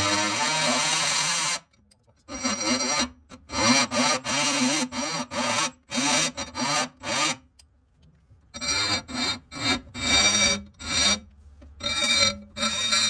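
Die grinder notching the metal dash mount: one longer pass, then a series of short grinding bursts of about half a second each with brief pauses, a steady high whine over the grinding.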